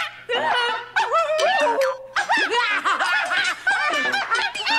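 Two or more people laughing loudly and without a break, the laughter rising and falling in pitch.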